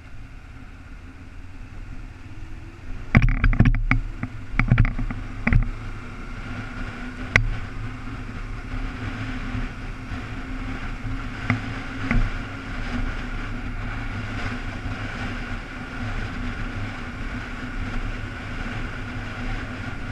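Sport motorcycle engine running under way with wind rushing over the bike, building up over the first few seconds and then holding a steady drone. A cluster of sharp knocks comes about three to six seconds in, with one more a little later.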